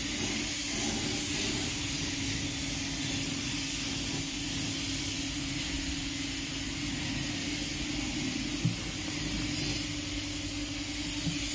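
Compressed-air spray gun hissing steadily as it sprays polish onto wood, over a steady low hum. A short knock about three-quarters of the way in.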